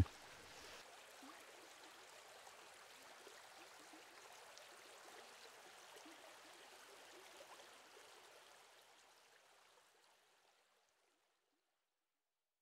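Faint babbling of a small shallow brook running over stones, a steady water hiss that fades out to silence about three-quarters of the way through.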